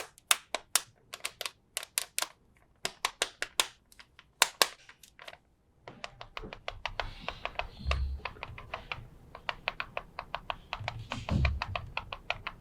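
Plastic toy pieces being handled and set down: quick irregular clicks and taps, sparse at first and coming thick and fast from about halfway, with a couple of soft thuds.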